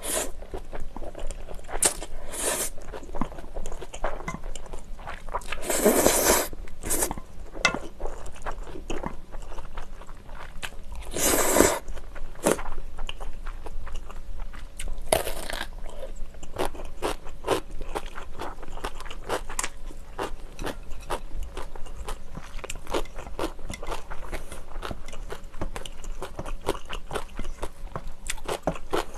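Close-miked eating sounds: a few long slurps of spicy ramen noodles in the first half, then a steady run of short crunches and chewing of cubed radish kimchi.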